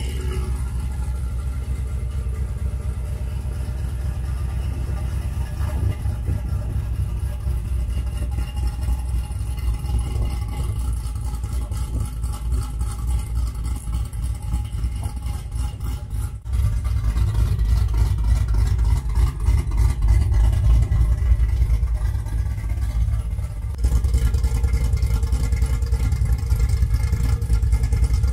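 Chevrolet Silverado pickup's engine idling with a deep, steady exhaust rumble. It jumps louder in two sudden steps in the second half.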